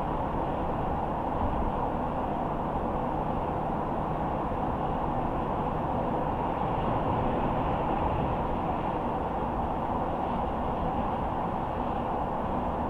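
Steady road noise of a car driving at speed: tyres on pavement and the engine, an even low rumble with no breaks.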